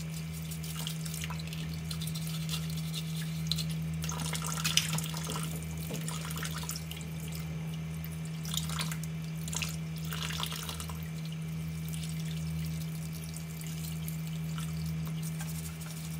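Water sloshing and splashing in a plastic basin as a crab is scrubbed clean with a toothbrush, in irregular bursts, under a steady low hum.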